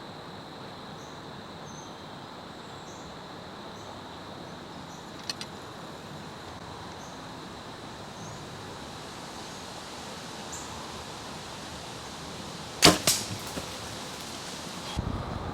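Compound bow shot at a whitetail doe: a sharp snap of the release about 13 seconds in, followed at once by two or three quick thuds as the arrow strikes her high in the spine. A steady rush of wind runs under it, with a small click midway.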